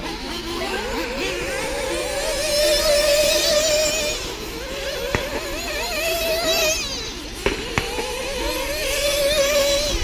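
Several radio-controlled racing cars running on the track. Their motors whine and waver up and down in pitch as the drivers work the throttle, with a few sharp clicks in the second half.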